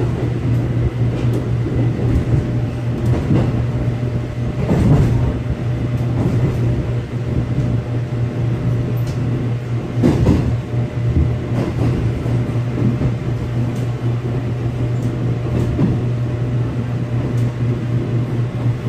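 Seoul Subway Line 4 electric train heard from inside the carriage, running with a steady low hum and rumble and a few louder clunks from the wheels over the track as it pulls in alongside a station platform.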